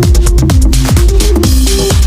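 Loud electronic dance music with a heavy, steady beat and held synth notes.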